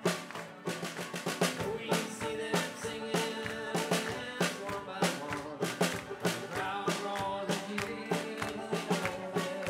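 Live folk-rock band playing an instrumental passage with no singing: a drum kit with snare and bass drum keeps a steady, busy beat under guitars.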